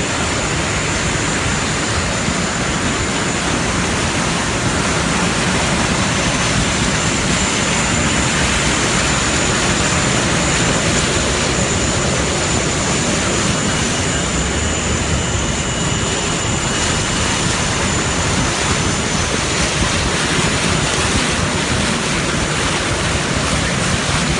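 Steady jet engine roar with a constant high whine, from aircraft on a flooded airport apron, over the rush of floodwater against a vehicle moving through it.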